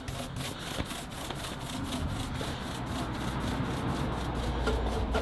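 A hand brush sweeping back and forth over an oak door's lacquered surface in quick repeated rubbing strokes, clearing off the dust left from denibbing with fine steel wool.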